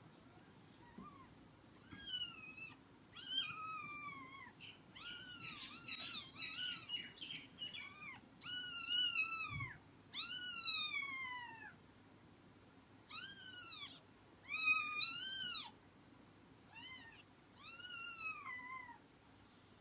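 Persian kittens mewing over and over: high, thin calls that rise and then fall, about a dozen in all, with several voices overlapping for a stretch.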